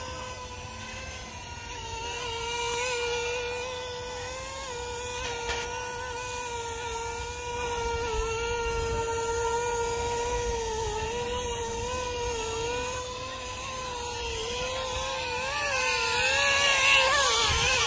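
Aerobat HC702 mini quadcopter's tiny motors and propellers whining steadily in flight, the pitch wavering slightly as the throttle shifts. Near the end it grows louder and the pitch wobbles more as the drone comes close.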